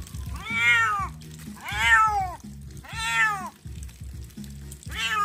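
A wet domestic cat meowing repeatedly while being shampooed: four long meows about a second apart, each rising then falling in pitch, the last near the end.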